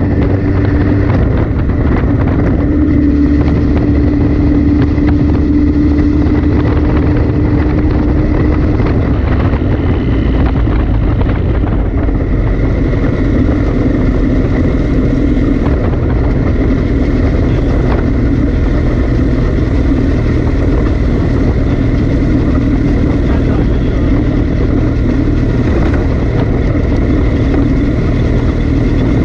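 Motorcycle engine running steadily while riding at road speed, with tyre and road noise.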